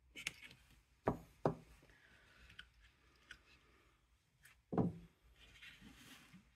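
Hands handling a small wooden box with wooden dividers: two knocks close together about a second in and a third near the end, with faint rustling and light clicks between.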